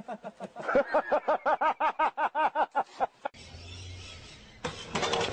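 A man's voice in a quick, even run of short pitched bursts, about six a second, for some three seconds. Then a low hum, and a burst of clatter near the end.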